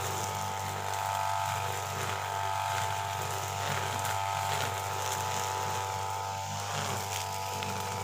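UM328 brush cutter's small engine running at a steady high-pitched whine, its 2.4 mm nylon line spinning through grass and weeds. The engine pitch wavers briefly about six and a half seconds in.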